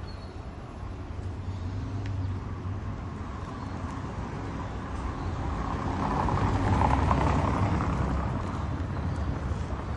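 Outdoor street ambience with a motor vehicle passing, its rumble swelling to its loudest about two-thirds of the way through and then fading.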